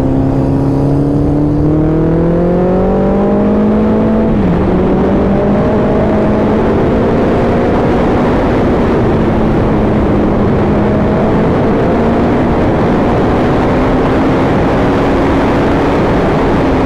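Suzuki Hayabusa's inline-four engine pulling hard, its pitch climbing for about four seconds, dropping sharply at an upshift, then rising slowly again at highway speed. A rush of wind over the rider grows as the speed builds.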